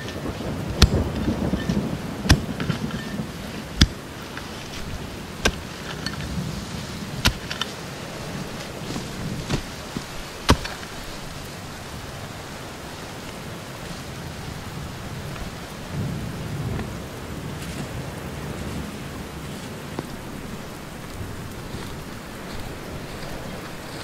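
Heavy rain falling steadily in a forest. In the first half, sharp knocks come about every one and a half seconds, and a low rumble swells near the start and again about two-thirds of the way through.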